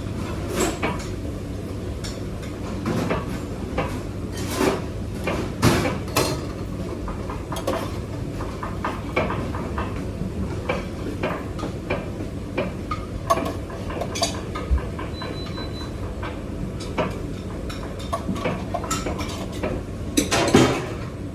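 Restaurant kitchen clatter: pots, pans and metal utensils knocking and clinking at irregular intervals over a steady low hum. The loudest knocks come about six seconds in and near the end.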